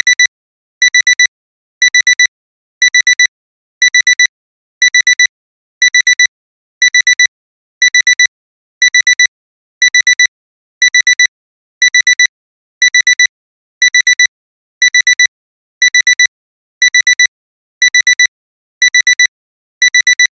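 Digital alarm clock beeping: quick bursts of four high beeps, repeating about once a second. This is the continuous alarm signalling that the timer has run out.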